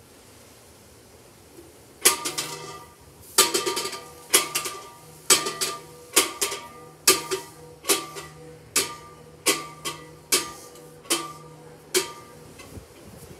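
Large church bell, San Pascual, being swung full circle. Its clapper strikes about once a second, starting a couple of seconds in, and each strike rings on. The strokes come gradually closer together.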